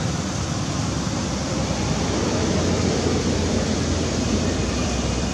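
Steady rushing noise without any distinct event.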